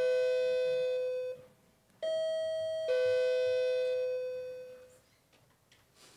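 Two-note ding-dong doorbell chime. A lower note rings out and fades at the start, then about two seconds in a full ding-dong sounds, a high note dropping to a lower one, dying away by about five seconds.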